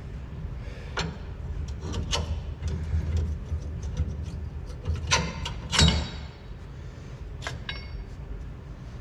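Scattered metal clanks and knocks of suspension parts being handled, loudest a little past the middle, then a piece of metal ringing briefly near the end, over a steady low hum.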